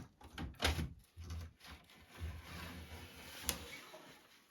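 Plastic rear case of a Macintosh Plus scraping and rubbing as it is slid off the chassis and handled, with a few knocks and a sharp click about three and a half seconds in.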